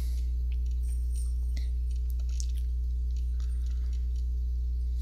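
Steady low electrical hum with a ladder of evenly spaced overtones, and a few faint light ticks over it.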